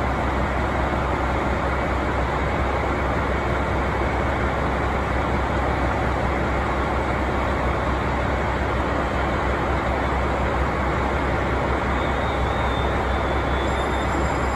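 KiHa 261 series diesel multiple unit idling at the platform: a steady low engine hum with station ambience, unchanging throughout. Faint high-pitched tones join near the end.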